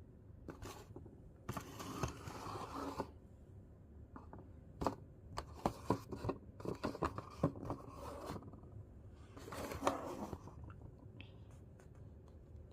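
Cardboard being handled: scraping and rustling with a run of sharp clicks and taps in the middle and a second scrape near the end.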